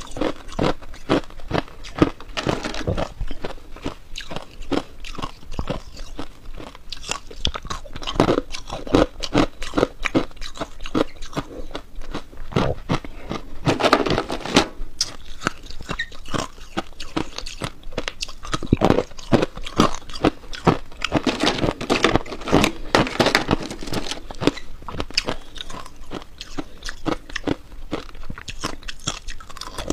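Hard ice and crushed ice being bitten and chewed close to the microphone: loud, rapid crunching made of many sharp cracks.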